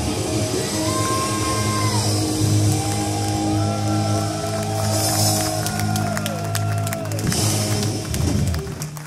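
Heavy metal band playing live in a hall: a held, ringing chord with bending notes above it and crashing cymbals, then a flurry of drum hits as the song closes, the band stopping shortly before the end.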